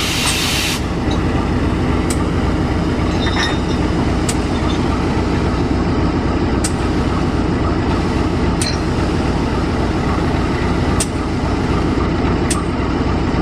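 Diesel-electric locomotive engine running steadily with a low rumble, a short burst of air hiss right at the start and a few scattered sharp clicks.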